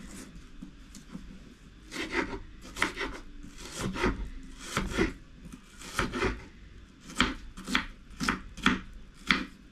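Kitchen knife chopping an onion on a wooden cutting board: irregular knife strokes against the board, often two in quick succession, starting about two seconds in.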